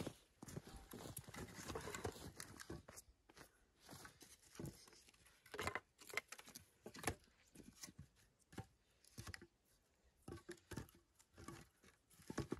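Faint, irregular soft knocks and rustling, with a denser patch of rustling in the first few seconds, the sound of someone moving about and handling things.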